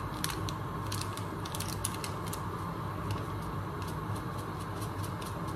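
Light, irregular clicks and taps of kitchen containers and utensils being handled while spices are added to the pot, over a steady low hum.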